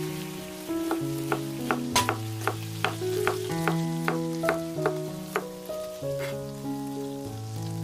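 Soft background music with held notes, over close-up kitchen sounds of a spatula folding thick muffin batter in a bowl: a quick run of clicks and taps, about three a second, that stops about five seconds in.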